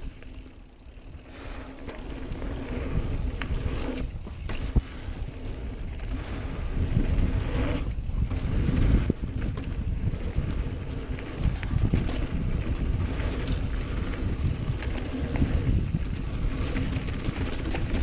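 Wind rushing over the microphone and the rattle and rumble of a mountain bike riding fast down a dirt trail. It grows louder about two seconds in, with scattered clicks and a few sharper knocks.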